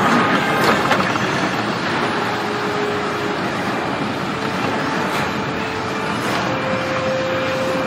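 Loud, steady rushing roar with no speech over it, a dramatic sound effect in a TV drama. A faint thin held tone sits over it in the second half.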